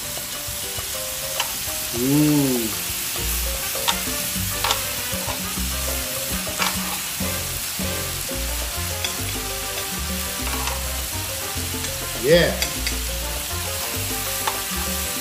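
Marinated galbi beef short ribs sizzling steadily on a ridged nonstick grill pan over a portable camping stove, with metal tongs clicking and scraping on the pan as the pieces are turned. Twice a short rising-and-falling squeal stands out, about two seconds in and again near the end.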